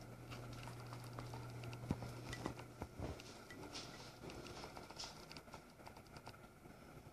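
Faint, irregular light taps of footsteps on a ceramic tile floor, over a low steady hum.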